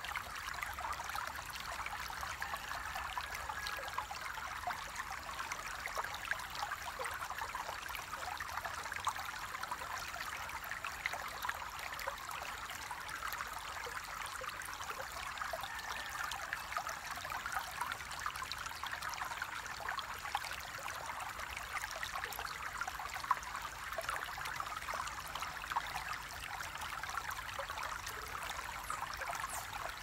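River water flowing steadily, with many small splashes and trickles through it.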